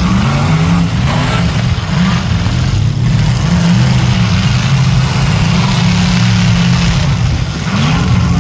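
Demolition derby stock car engines running loudly together in a dirt arena, with several brief rises in pitch as the drivers rev, near the start, about a second in, and near the end.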